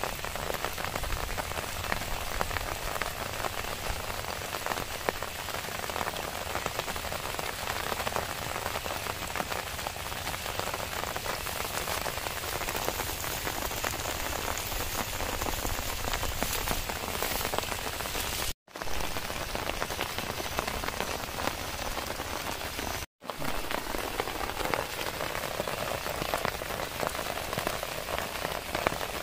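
Heavy rain falling steadily on pond water and grass. The rain noise is broken by two short gaps of silence about two-thirds of the way in.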